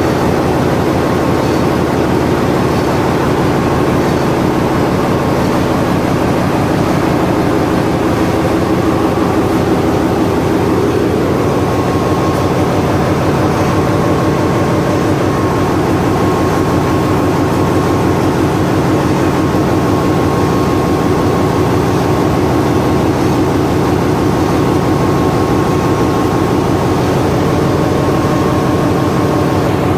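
Loud, steady ship's engine-room noise from running diesel machinery, with a faint high whine joining in after about twelve seconds.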